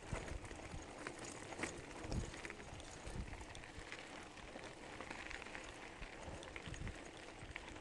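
Mountain bike rolling downhill on a loose gravel track: tyres crunching over stones and the bike rattling with scattered clicks and knocks over the bumps, with low, irregular thumps.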